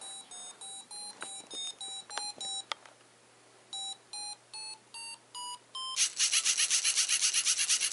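LEGO Mindstorms NXT brick beeping: a run of short beeps, then after a short pause a series of beeps stepping up in pitch. About six seconds in, the NXT motors and gears start with a loud, rapidly pulsing rattle, about seven pulses a second, as the self-balancing Segway begins driving itself.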